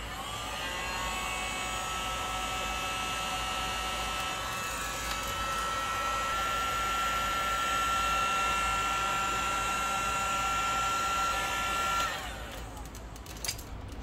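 Wagner Power Stripper heat gun running: a steady rush of blown air with a whine from its fan motor, aimed at heat-shrink tubing. It is switched off about twelve seconds in and the whine winds down.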